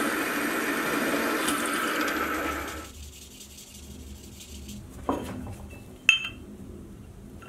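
Drill press running as it drills a screw hole in a steel bracket plate, the motor noise stopping about three seconds in. Then two sharp metal clinks as steel parts are set down on a wooden workbench, the second one louder.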